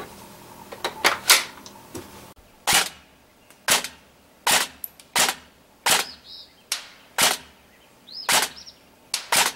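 A few knocks of the carbine and magazines being set down on a wooden table. Then about nine single shots from the ICS CXP M.A.R.S. electric-blowback airsoft carbine, roughly a second apart, each a sharp crack.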